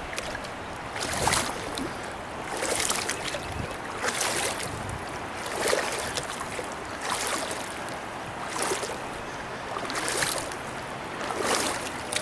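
Paddle strokes swishing through river water at an even pace, about one every one and a half seconds, eight in all, over a steady low rush of water and wind.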